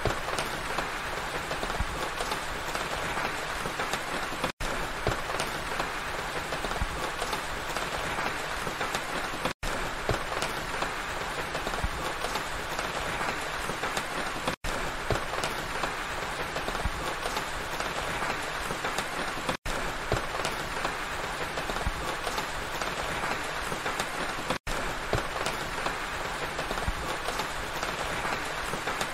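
Steady rain falling on a pine forest, an even hiss of many small drops. The sound cuts out for an instant about every five seconds.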